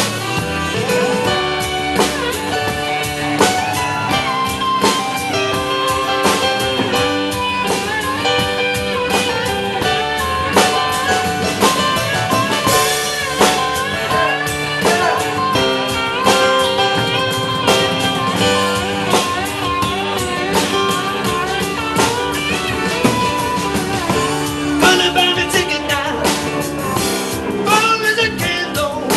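Live band playing: electric guitar over a steady drum beat, with a man singing near the end.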